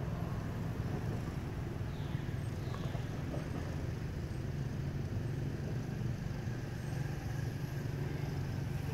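A steady low rumble, like a motor vehicle engine running, holding level throughout.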